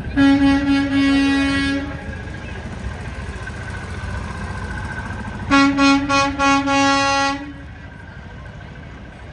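Vehicle air horn blown twice on a single steady note: a blast of nearly two seconds, then, about five seconds later, a few quick toots that run into another held blast.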